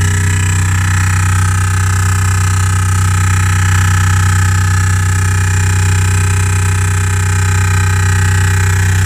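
Loud drilling noise from the Bose bass speaker of a 2015 Renault Grand Scenic, steady and unchanging, with a strong low hum. It is a fault in the R-Link system, which Renault traced to navigation software needing reprogramming.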